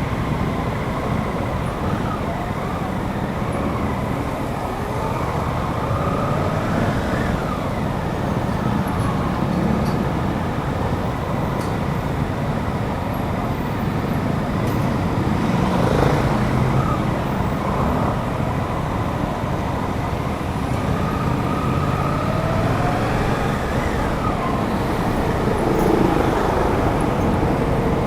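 Suzuki GSX-8S parallel-twin engine running under way, mixed with steady wind rush on the action camera's microphone; the engine pitch rises and falls a few times as the revs change.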